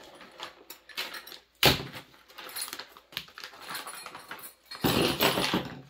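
Clear plastic bag crinkling and small loose metal chainsaw parts clicking and clinking as they are handled and shaken out of it, with a sharp click about one and a half seconds in and a longer crinkle near the end.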